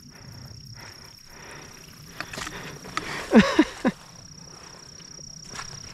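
A steady high-pitched insect drone (crickets), under the sloshing and squelching of footsteps wading through shallow water and mud, with a louder bout of squelches about three and a half seconds in.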